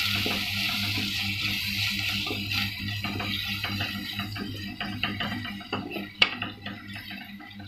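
Sliced onions frying in oil and ghee, with a sizzle that fades toward the end, while a wooden spatula stirs and knocks against the pot. A sharper knock comes about six seconds in, over a steady low hum.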